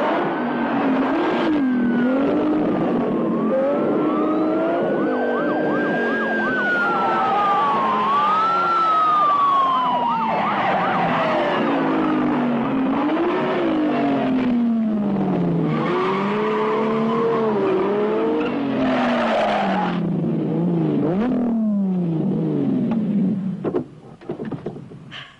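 A sports car's engine revving hard, its pitch repeatedly climbing and falling, together with a police siren wailing up and down, as in a car chase. The sound drops away abruptly near the end.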